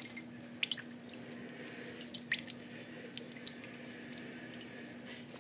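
Water dripping and splashing from a cloth bundle of salted carrot and radish shreds being wrung out by hand over a bowl of water, in irregular drops.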